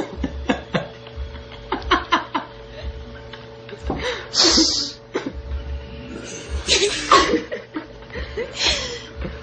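People giggling and snickering in short bursts, with a sharp breathy burst about four and a half seconds in.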